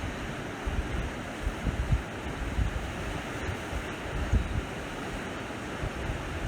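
Sea waves washing on the shore in a steady wash, with wind buffeting the microphone in irregular low rumbles.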